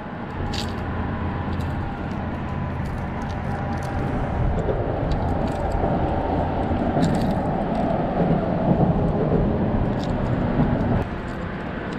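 Road traffic rumbling on the bridge overhead, a steady low drone that swells for several seconds in the middle as a vehicle passes, with faint handling clicks.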